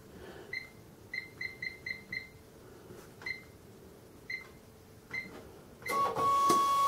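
Sam4S NR-500 series cash register: about nine short key-press beeps as menu keys are pressed, five in a quick run near the second second. About six seconds in, its built-in receipt printer starts printing the stock report.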